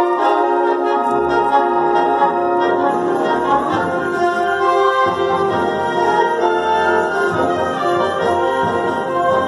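Youth concert band of woodwinds and brass playing a piece, with held chords that change from one to the next and the low parts filling in about halfway through.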